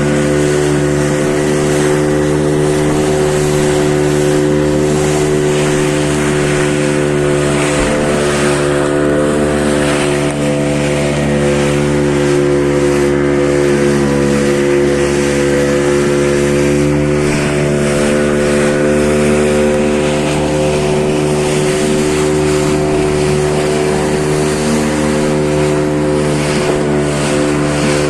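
An engine running steadily at one constant speed, with no change in pitch.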